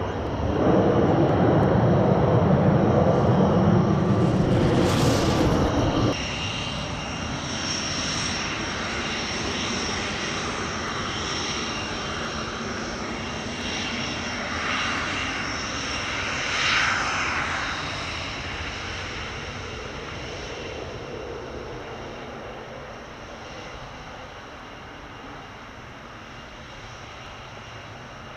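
Panavia Tornado's twin RB199 jet engines: a loud roar as it lands on a wet runway, which drops suddenly about six seconds in to a quieter, steady high whine as it taxis, fading toward the end.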